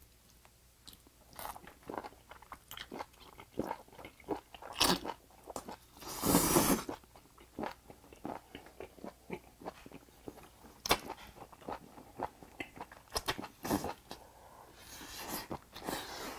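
A person biting and chewing grilled octopus close to the microphone: many quick wet mouth clicks, with a loud slurp about six seconds in as the octopus is sucked off its wooden stick, and another slurp near the end.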